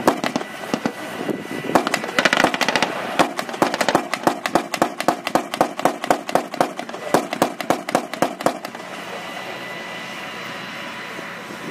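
Machine-gun fire in rapid, uneven bursts of sharp shots, stopping about nine seconds in. A steady engine drone from the tanks runs underneath and is left on its own after the firing stops.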